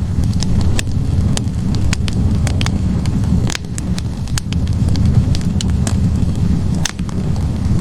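Wood fire burning in a fireplace: logs crackling, with many sharp, irregular pops over a steady low rush of flames.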